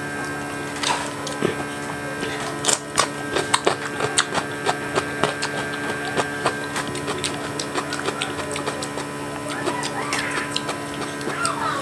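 Close-miked eating: frequent short clicks and smacks of a mouth chewing, over a steady electrical hum.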